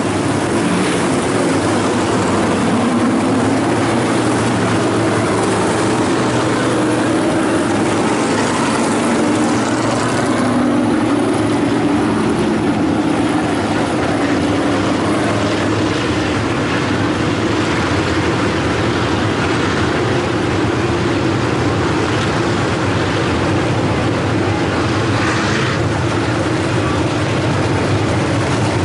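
Steady drone of a field of IMCA stock car V8 engines running at low speed, circling slowly under caution.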